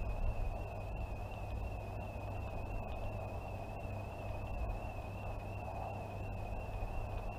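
A distant alarm sounder holding one steady high-pitched tone with a slight wobble in pitch, over a low rumble.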